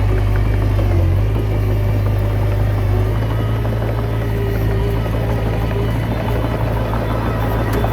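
Komatsu D20P bulldozer's diesel engine running steadily, a continuous low drone.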